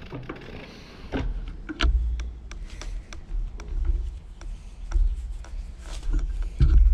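Wind buffeting the microphone of a moving camera in uneven gusts, loudest near the end, with irregular clicks and light rattles throughout.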